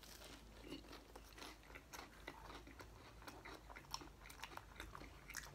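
Someone biting into and chewing a slice of toasted French bread pizza, the crust crunching in many small, faint crackles.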